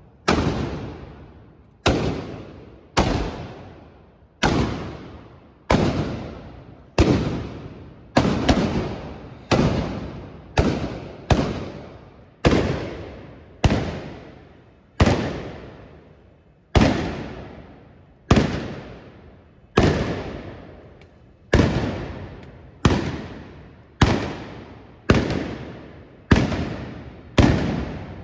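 Trabucs, Catalan blunderbusses loaded with blank black-powder charges, fired one after another in a galejada salvo: about two dozen loud blasts at roughly one a second, each followed by a long echo.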